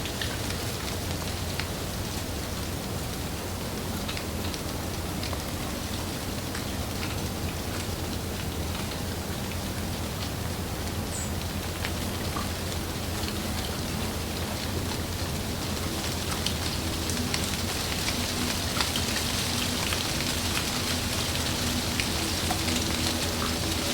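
Heavy rain falling on tree leaves: a steady hiss dotted with individual drop hits, growing slightly louder in the second half.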